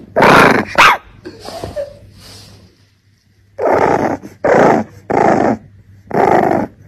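A bulldog puppy vocalising: two short, high yips in the first second, then four short, gruff, growling barks in the second half.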